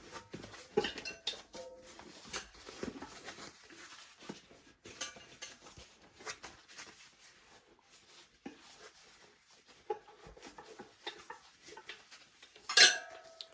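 Scattered small clicks, rustles and metallic clinks from handling a dirt bike tire, its metal rim and rubber inner tube by hand, with one louder clank near the end.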